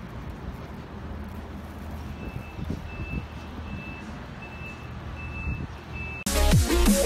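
A vehicle's reversing beeper sounds a series of high single-tone beeps, about one every two-thirds of a second, starting about two seconds in, over a low rumble of city traffic. Loud electronic music with heavy drums cuts in abruptly near the end.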